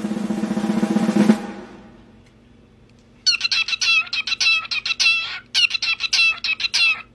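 A snare drum roll ends and dies away in the first second and a half. Then, about three seconds in, a parrot gives a rapid run of short, high chirping calls in two bursts.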